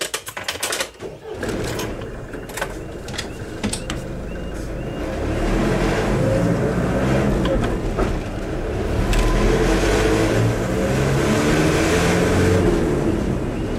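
Car engine and road noise heard from inside the cabin of a car driving along a lane, with a few knocks and clicks in the first second or so. The engine note gets louder about five seconds in.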